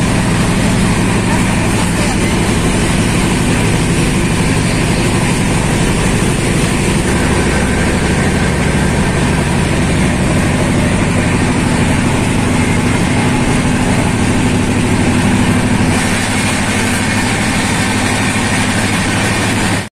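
Passenger train running along the track: a loud, steady rumble and rush of running noise with no let-up.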